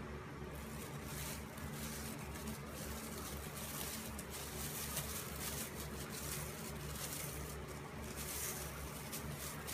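Thin plastic grocery bags rustling and crinkling in irregular bursts as a cat moves in them and chews at the plastic, over a low steady hum.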